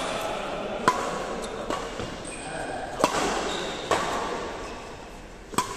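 Badminton rackets hitting a shuttlecock in a rally: four sharp, echoing hits at uneven gaps of one to two seconds.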